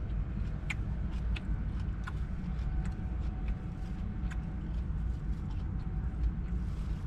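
Fork clicking and scraping against a plastic salad tub as salad is picked up, a scattering of short sharp clicks over a steady low rumble.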